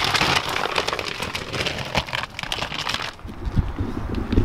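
Crinkly plastic dog food bag being handled and shaken, a dense crackling that eases off about three seconds in.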